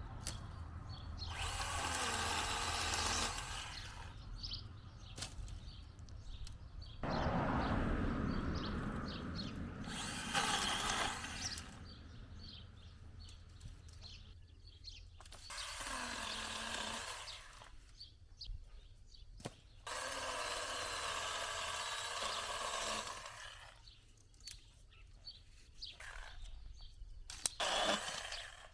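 Petrol hedge trimmer revving up in bursts of two to four seconds while cutting, dropping back toward idle between bursts, four times.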